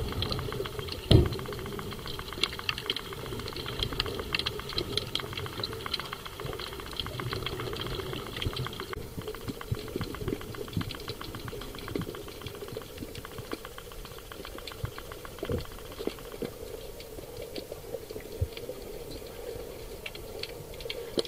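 Underwater sound: a dense, continuous crackle of fine clicks and ticks over a steady low hum, with a single loud thump about a second in.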